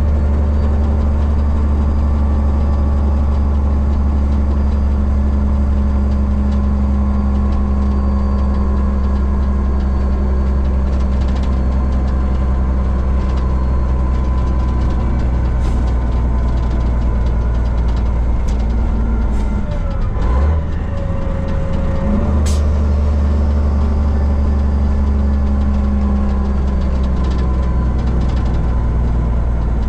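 Heavy truck's diesel engine running steadily under way, heard from inside the cab. About two-thirds of the way in the engine note breaks off and changes briefly twice before settling back, with a few sharp clicks around then.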